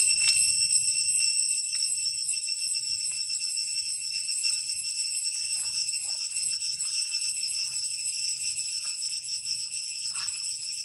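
Steady, shrill, high-pitched insect chorus with a fine shimmer, as of cicadas, running on without a break.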